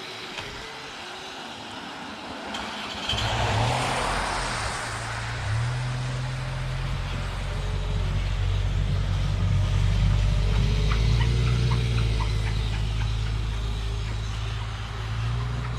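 Electric whine of an RC snowcat's brushless motors, wavering up and down as it drives. About three seconds in, a loud, low, steady engine-like hum sets in and carries on, shifting pitch once soon after it starts.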